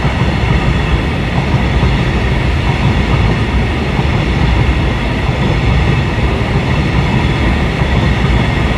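Freight train of covered hopper wagons rolling past close by: a loud, steady rumble and rattle of wheels on the rails.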